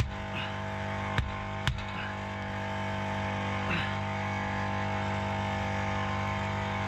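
Steady electric drone of a portable tyre compressor running as it inflates the tyre, with three sharp clicks in the first two seconds.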